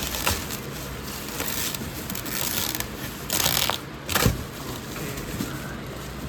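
Packaging being handled during an unboxing: plastic and cardboard rustling and scraping in several short bursts, with a thump about four seconds in.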